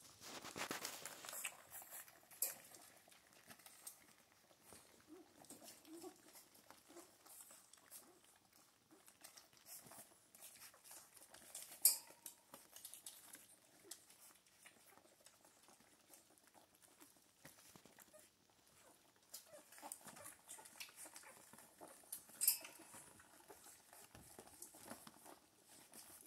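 Faint rustling and small clicks of a litter of puppies suckling and jostling under their mother on a plush dog bed. A couple of sharper clicks stand out, one about halfway through and one near the end.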